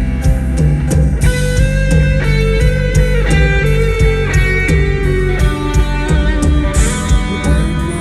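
Rock music without vocals: an electric guitar playing held melody notes over bass and a drum kit keeping a steady beat.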